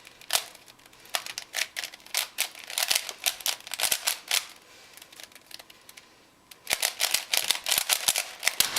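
Plastic Rubik's Cube layers clicking as they are turned rapidly in a speed-solve. There is a pause of about a second and a half in the middle, then a fast run of turns that stops near the end as the solve is finished.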